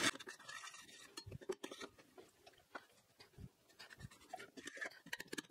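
Faint, scattered scraping and light ticks of a metal spoon stirring melted sugar in a stainless-steel saucepan as it turns to caramel.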